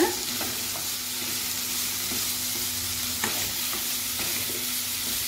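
Cauliflower, onion and tomato sizzling in a little oil in a kadai while a wooden spatula stirs and scrapes through them.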